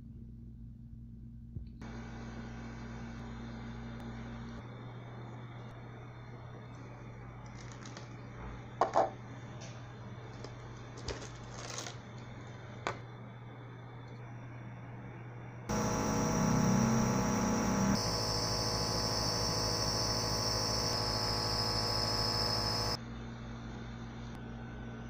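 A steady low electrical hum, with a few clicks and crinkles of plastic packaging being handled around the middle. Then a much louder machine buzz for about seven seconds, changing pitch about two seconds in and cutting off suddenly.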